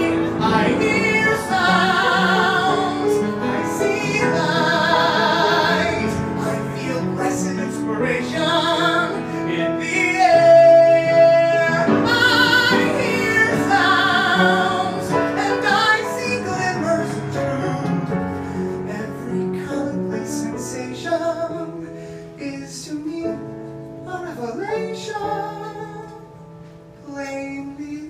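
A man singing a musical-theatre song in a high tenor, holding notes with wide vibrato, over piano accompaniment; the music grows softer about three-quarters of the way through, then swells again at the end.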